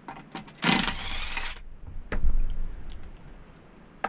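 A ratchet run for about a second as it turns a bolt on an R380 gearbox casing, followed by a low knock and a few light metal clicks.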